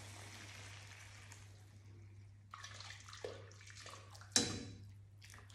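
Fish stock poured in a steady stream from a stainless steel pot into a wide paella pan, splashing over the rice; the pouring noise fades over about two seconds. A few light knocks follow, then a sharper metallic clink a little past four seconds in, over a low steady hum.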